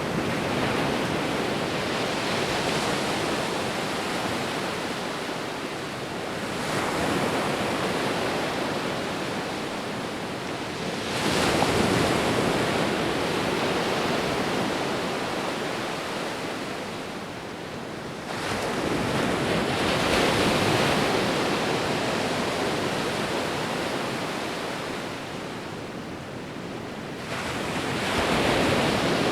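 Sea waves breaking and washing up a shore, a new wave surging in about every six to eight seconds, with a steady hiss of surf between.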